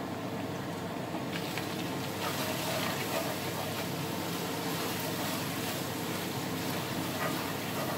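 Onion, tomato purée and spices sizzling in hot oil in a cast-iron pot as they are stirred with a wooden spoon: a steady frying hiss with a few faint scrapes of the spoon.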